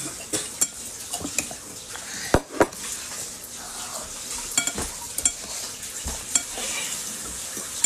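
Spoons clinking and scraping against bowls and plates during a meal: scattered light clicks and scrapes over a steady hiss, with two sharper knocks about two and a half seconds in.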